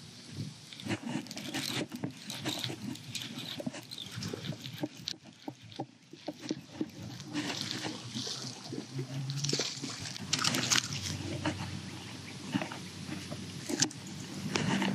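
Irregular rustling, clicking and splashing as a hooked largemouth bass is fought at the surface and landed from the bank, with handling noise on the rod and camera.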